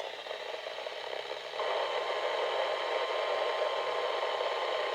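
Weather radio receiver hissing with static between parts of the broadcast; about a second and a half in the static grows louder.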